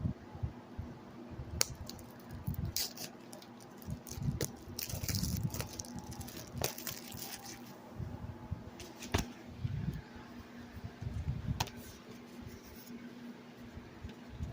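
A CD case and its packaging being handled: scattered clicks and taps of plastic, with a stretch of crackling rustle in the middle, over low handling bumps.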